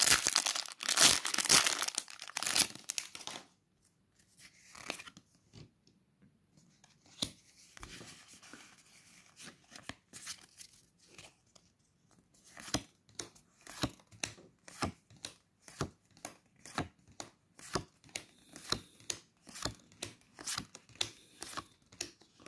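Foil Pokémon booster pack crinkling and tearing open for the first few seconds. Later, trading cards are slid off the stack one by one, with short soft snaps about twice a second.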